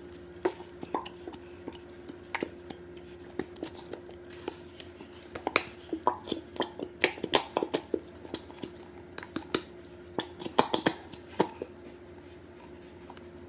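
Irregular sharp clicks and knocks as squeeze bottles of glue are emptied and handled against mixing bowls, coming in bunches with short gaps.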